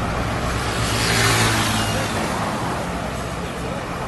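Heavy truck's diesel engine pulling away along the highway, a steady low hum, with road and tyre noise swelling about a second in and then fading.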